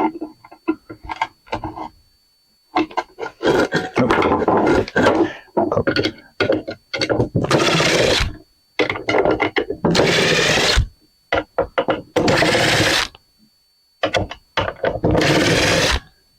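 Parts of a cast-aluminium outdoor light fixture being worked apart by hand: repeated scraping and rubbing in stretches of about a second, with short knocks and clatter between them, as a gasket-held part is pried loose.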